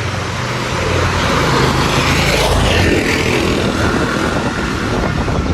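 A motor vehicle passing close by: a low engine hum and road noise that swell to a peak about two and a half seconds in, then fade.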